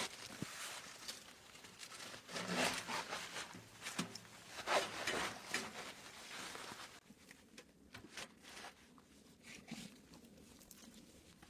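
Rustling and crunching handling noises, loudest in the first half, then fading to scattered light clicks.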